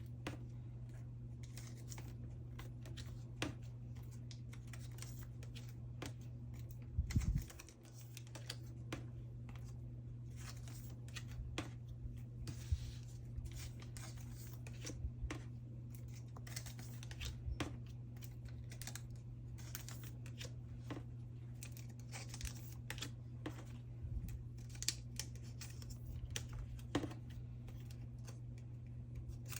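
Photocards being slid out of plastic sleeves: many small clicks, taps and light rustles of plastic and card, with a low thump about seven seconds in, over a steady low hum.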